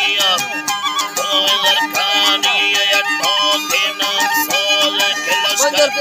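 Folk music played live on a short wooden flute, its ornamented, wavering melody over a long-necked lute that keeps a quick, even beat.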